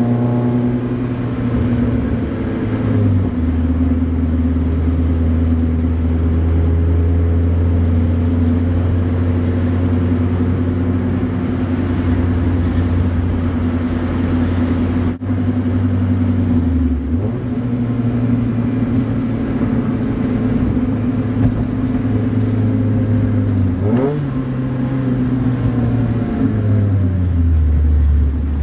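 2000 Mazda Miata's four-cylinder engine running steadily through an Enthuza XR axle-back exhaust, a Magnaflow straight-through muffler on 2.5-inch piping, heard from inside the car while driving. The engine note steps down about three seconds in, dips and comes back around the middle, rises again later and drops near the end.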